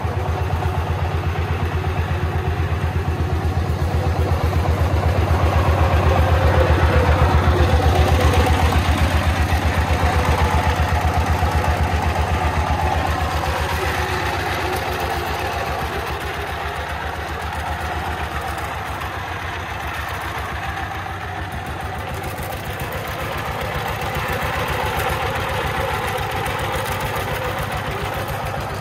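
Diesel engine of a three-wheeled công nông farm truck running under way with an even, rapid beat of firing strokes. It is loudest about a quarter of the way in, eases off in the middle and picks up again near the end.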